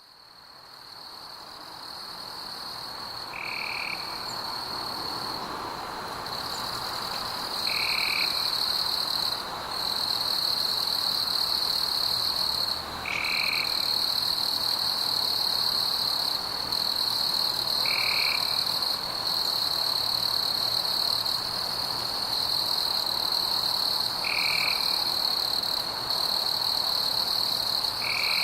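Night-time chorus of frogs and insects: a steady high trill that breaks off briefly now and then, with a short call repeating every four to six seconds. It fades in over the first several seconds.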